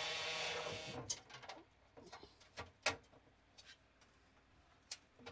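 A steady buzzing tone that cuts off about a second in, followed by scattered light clicks and knocks of parts and tools being handled while fitting a plate.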